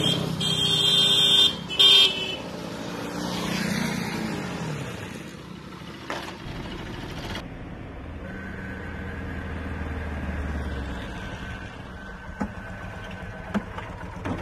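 Road traffic: a vehicle horn honks in the first couple of seconds, then a motorcycle engine note rises and falls as it passes. Later a steadier low engine rumble follows, with a couple of faint clicks near the end.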